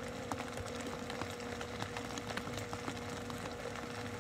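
An engine idling with a steady hum and a held low tone, with faint scattered ticks.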